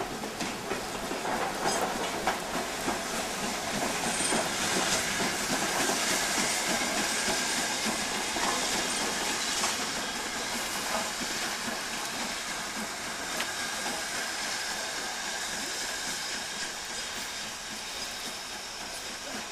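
Steam-hauled train moving through, with a steady hiss of steam and wheels clicking over the rail joints. It is loudest in the middle and fades toward the end.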